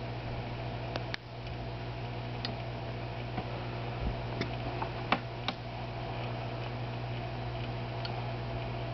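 Low, steady hum of aquarium equipment, with a handful of sharp clicks at irregular times, the loudest about five seconds in.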